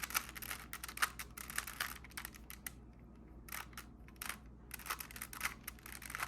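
Plastic Rubik's Cube layers being twisted by hand: flurries of quick clicking, clattering turns with short pauses between them.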